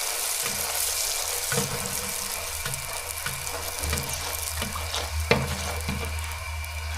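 Mandazi deep-frying in hot oil, a steady sizzling hiss, with a few light clicks and one sharper knock about five seconds in.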